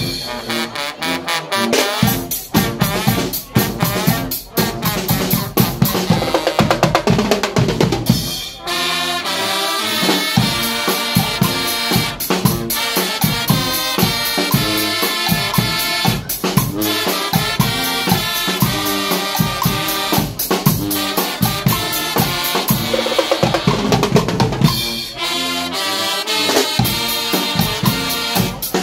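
Guggenmusik band playing live: massed brass over a steady beat from big bass drums and a drum kit with snare and cymbals. About nine seconds in the bass drums drop out for roughly two seconds, then come back in.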